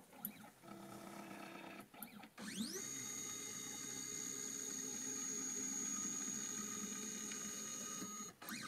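Stepper motors of a Sainsmart 3018 PROVer desktop CNC router driving its axes in a homing cycle. A faint whine at first, then, about two and a half seconds in, a rising whine as the axes speed up. It holds steady and stops shortly before the end.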